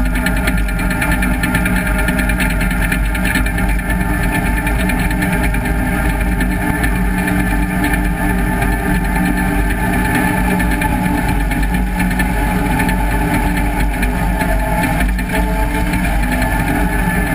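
John Deere 850J crawler dozer's diesel engine running steadily under load while the blade pushes dirt, heard close up from the machine itself.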